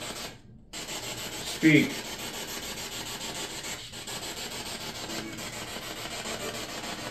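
Spirit box scanning through radio stations, giving a steady static hiss that cuts out briefly near the start.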